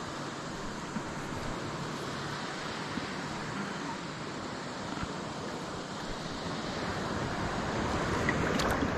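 Steady wind and water noise, growing a little louder near the end.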